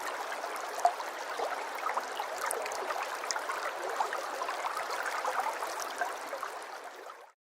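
River water flowing with a steady rush and small splashing gurgles, fading out near the end.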